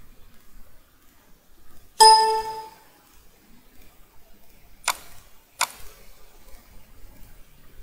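A computer's system alert ding sounds once about two seconds in: a single pitched chime with overtones that fades within about half a second. About three seconds later come two sharp mouse clicks, under a second apart.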